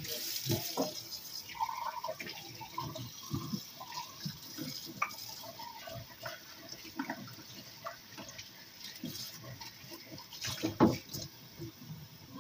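Kitchen tap running into a sink while glass mugs are washed and set down, with scattered clinks and knocks of glass and a louder knock about eleven seconds in.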